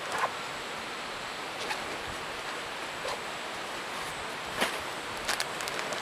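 Nylon backpack being handled and unpacked: brief rustles and a few sharp clicks of fabric and fittings, over a steady background hiss.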